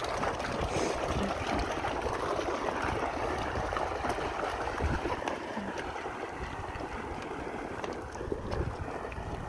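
Steady water splashing as several dogs run through shallow seawater at the shoreline.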